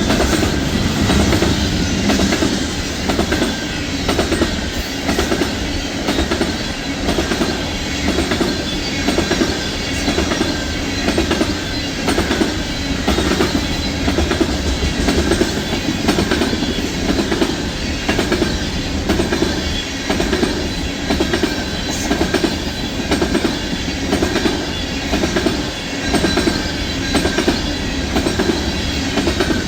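Freight train cars rolling past, their steel wheels clicking over the rail joints in a steady repeating rhythm.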